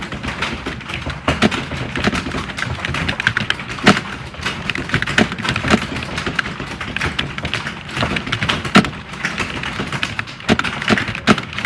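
Computer keyboards being typed on, a dense, continuous clatter of overlapping key clicks like a room full of candidates sitting a typing test.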